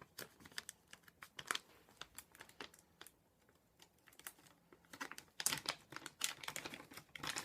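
Handling noise: scattered light clicks and ticks with some plastic crinkling, busier about two thirds of the way through, as packaging and a plastic airsoft part are handled.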